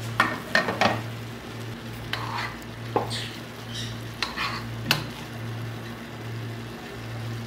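A wooden spatula stirring and turning half-cooked basmati rice in a pot, its water cooked off, with soft scraping and several sharp knocks against the pot. A faint sizzle and a steady low hum sit underneath.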